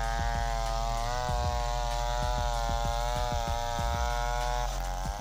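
Chainsaw engine running at high revs while cutting wood, with a steady buzzing note. The pitch sags briefly under load about four and a half seconds in, then recovers.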